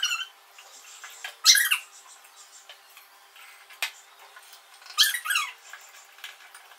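Short, high squeaky animal calls, three separate bursts a couple of seconds apart, with a single light tap near the middle.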